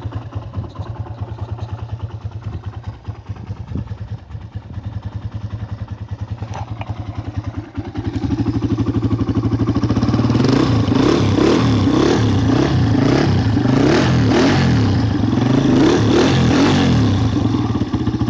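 Honda CRF150 four-stroke single-cylinder dirt bike engine running cold at half choke after months of storage. It idles for the first eight seconds or so, then is revved up louder with the pitch rising and falling in repeated throttle blips, and settles back down near the end.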